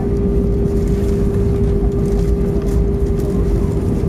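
Cabin noise of an Airbus A320 rolling out on the runway just after landing: a loud, steady low rumble from the engines and wheels, with a constant humming tone over it.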